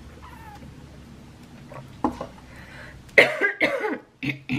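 A woman coughing and clearing her throat: a loud fit of coughs about three seconds in, and another short cough near the end.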